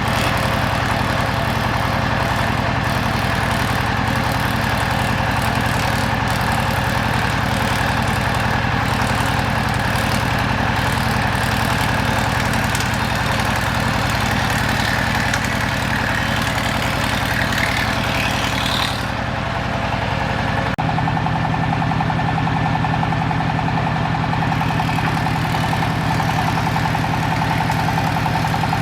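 Woodworking machinery running steadily with a low, even engine-like hum. About two-thirds of the way in it switches abruptly to a different steady hum.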